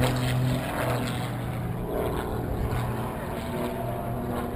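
Propeller engine of an aerobatic display plane droning overhead with a steady pitch that shifts a little as it flies.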